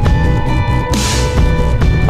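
Backing music with deep bass and a steady beat.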